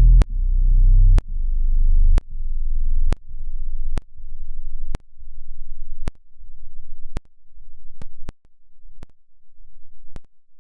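An edited cat meow sound effect played again and again in segments of about a second, each ending in a click; it is so warped that it comes out as a deep buzz, fainter and more pulsing with each repeat.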